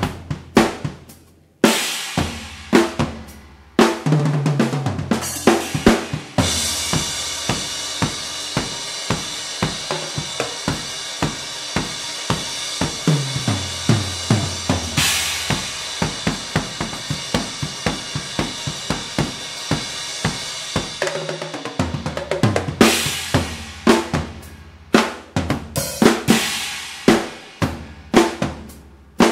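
Solo drum kit played with sticks: snare, bass drum, toms and cymbals. It opens with spaced hits, then from about six seconds plays a long run of fast strokes and tom fills under a sustained cymbal wash, and thins back to separate hits a little past twenty seconds.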